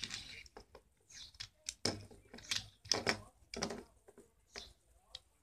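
Small toy Ford Mustang car being handled and turned against a painted surface: a run of irregular light clicks and taps, dying away near the end.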